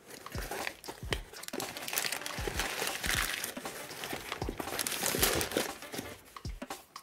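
Crumpled paper packing crinkling and rustling as hands pull it out of a cardboard shipping box. The crackle comes in surges, loudest about three seconds in and again about five seconds in.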